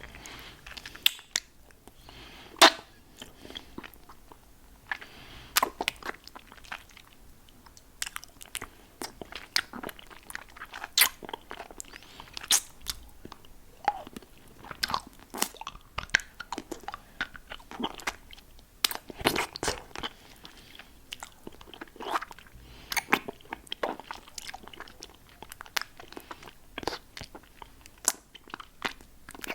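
Close-miked mouth sounds of a lollipop being eaten: irregular sharp wet clicks and smacks, several a second in clusters, with quieter gaps between.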